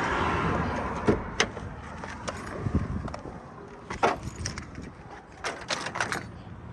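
A car's hood being popped: scattered sharp clicks and knocks from the release and latch, with a cluster of lighter clicks near the end.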